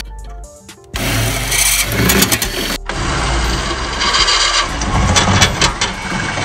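Cordless drill boring through a thin sheet-metal plate, with music laid over it from about three seconds in.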